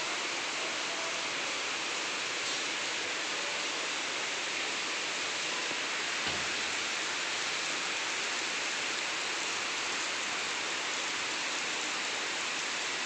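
Steady, even rain falling, with one soft low thump about six seconds in.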